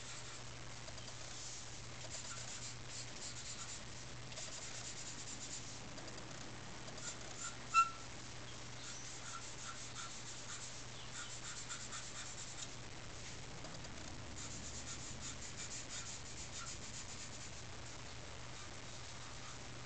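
6B charcoal pencil scratching on paper in groups of quick short strokes, with pauses between groups, as fur is hatched in. A single brief high chirp sounds about eight seconds in.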